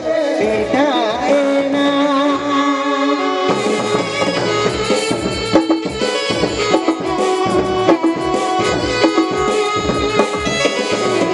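Live Santali folk stage-band music: held electronic keyboard melody lines, joined about three and a half seconds in by a steady, fast drum beat.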